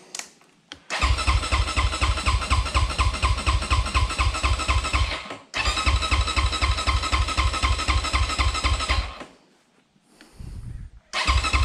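Electric starter cranking the SSR SR300's single-cylinder four-stroke engine in two long bursts of about four seconds each, then a short weak one and another starting near the end, each with a steady rapid chug of compression strokes. The engine turns over but never fires, because it has no spark: the plug lead has come off the ignition coil.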